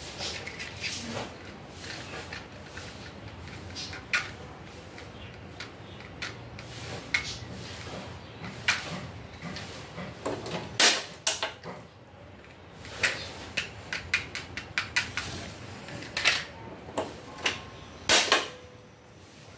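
Irregular sharp clicks and knocks of kitchen handling, with a loud burst of clicks about two-thirds through. Near the end a sharp click and brief rush as the gas burner under the steel wok is lit.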